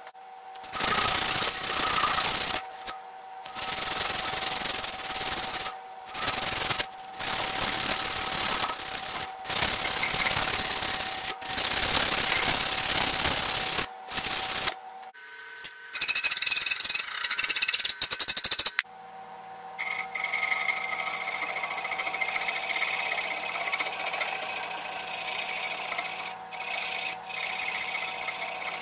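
Abrasive paper rubbed by hand over the metal of a cast-iron can opener clamped in a vise: rasping strokes in short spells that start and stop abruptly. In the last third the rubbing is steadier and quieter.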